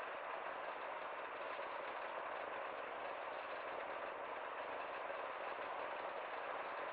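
Steady, even hiss of a car waiting at a red light with its engine idling, mixed with the noise of street traffic.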